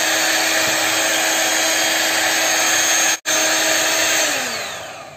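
Electric hand mixer running steadily with a motor whine as its beaters whip mango cake batter in a glass bowl. The sound cuts out for an instant about three seconds in. Near the end the motor winds down, falling in pitch.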